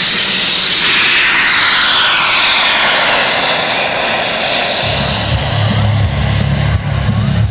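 Twin model turbine jet engines of a large radio-controlled A-10 Warthog running at high power through takeoff and climb-out, their whine sliding down in pitch as the aircraft passes and flies away. A low steady rumble joins in about five seconds in.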